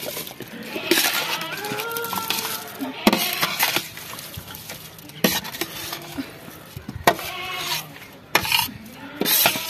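A slotted steel ladle scrapes and clinks against a steel bowl as washed rice is pushed off it and slides into a steel pot of boiling liquid, with several sharp metal clinks along the way.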